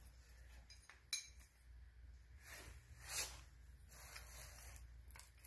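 Light metal clinks and a scrape of new brake pads being handled and fitted into the front brake caliper of a 2005 Kawasaki Brute Force 750 ATV. There is a sharp click about a second in and a longer scrape around three seconds in.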